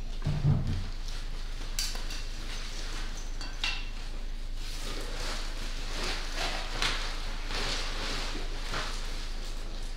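Dishes and a metal utensil clinking and scraping in a run of short, scattered clicks, with a dull thump about half a second in.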